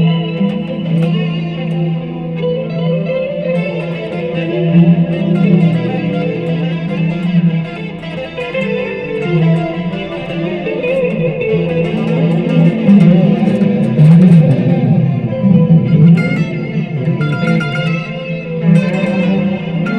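Dean Avalanche electric guitar with Seymour Duncan pickups, played through a Line 6 Spider Jam amplifier: a continuous run of melodic phrases with held notes.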